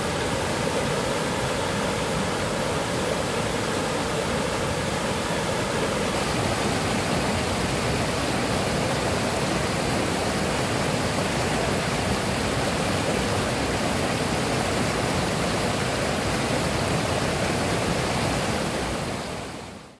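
Mountain stream water rushing down small cascades between boulders, a steady even rush that shifts slightly in tone about six seconds in and fades out at the very end.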